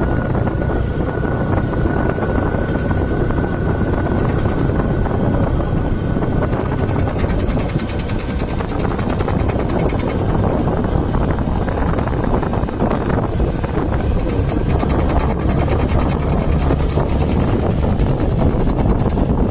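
TVS Sport 110i motorcycle's single-cylinder four-stroke engine running steadily, with fast ticking over the engine note and a thin steady whine during the first several seconds. The owner takes the noise for abnormal; commenters blame it on a loose starter motor or the cam chain tensioner.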